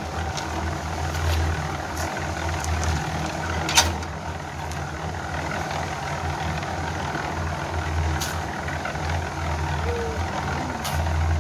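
Small electric drum concrete mixer running with a steady low hum as its drum turns. Now and then a sharp scrape or clink of a shovel in gravel cuts through, the loudest about four seconds in.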